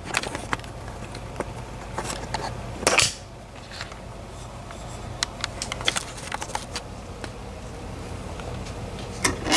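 Scattered small clicks and taps of a lock and its picks being handled at close range, with a louder scrape about three seconds in, over a steady low hum.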